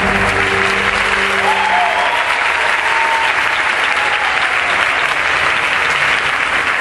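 Audience applauding a stage performance at the end of the act, with the last notes of the music dying away in the first second and a half.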